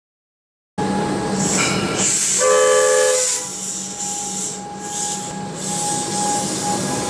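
Alstom X'trapolis electric multiple unit train moving along the platform, with a steady electric whine and hum, starting suddenly about a second in. A short horn blast sounds about two and a half seconds in.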